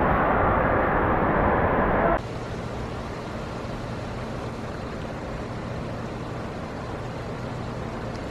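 Water rushing into the start of an indoor body slide, a loud steady noise echoing in the hall. About two seconds in it cuts off abruptly to a much quieter steady background with a faint low hum.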